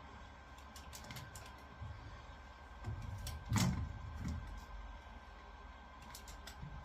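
Faint scattered clicks and creaks of a person moving about, with one louder low thump about three and a half seconds in.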